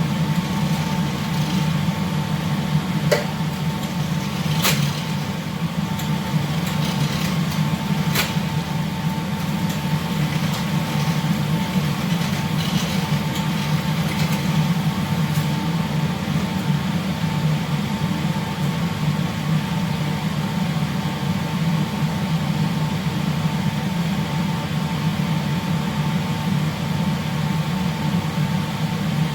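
Steady low machinery hum of a ship, with a thin constant whine above it and a few light clicks or clinks of utensils in the first several seconds.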